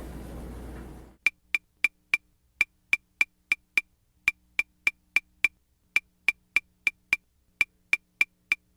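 A rhythmic beat of sharp, woody clicks, about three a second in runs of four or five with short pauses between, starting about a second in after a little room noise.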